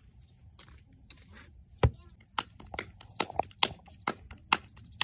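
A run of about a dozen sharp knocks or clicks at an uneven pace, starting about two seconds in. The first knock is the loudest, and the rest come faster in the middle.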